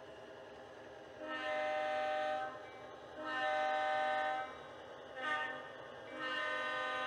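Model diesel locomotive's sound-equipped horn sounding the grade-crossing signal: two long blasts, a short one, then a final long blast starting about six seconds in. A faint steady engine sound runs underneath.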